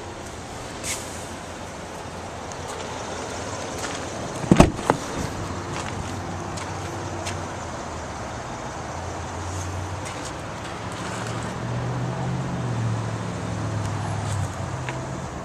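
A vehicle door thumps shut about four and a half seconds in, with a lighter knock just after, over steady outdoor background noise and small handling clicks. Later a low vehicle hum rises and fades.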